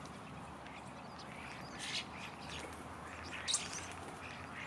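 Wild birds giving a series of short, sharp calls, the loudest about two and three and a half seconds in, over faint background noise.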